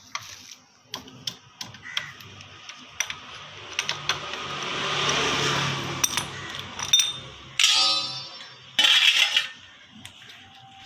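Metal clinks and taps of a box spanner on the oil drain nut under a Vespa SXL's engine, with a steel bowl handled and set down beneath it. A rushing noise swells and fades around the middle, and two loud, harsh bursts come near the end.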